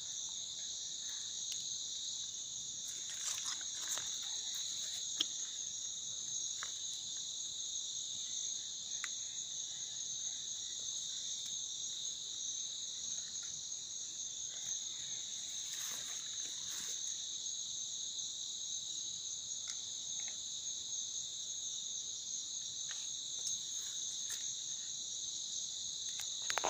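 A chorus of crickets trills steadily and without a break in two high-pitched bands. A few brief rustles and clicks come through now and then.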